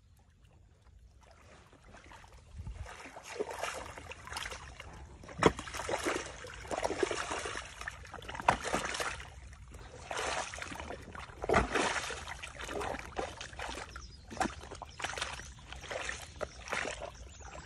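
Shallow muddy water sloshing and splashing as hands dig into wet mud at a pond bank to open up an eel's hole, in irregular bursts with a few sharper splashes. Faint for the first couple of seconds.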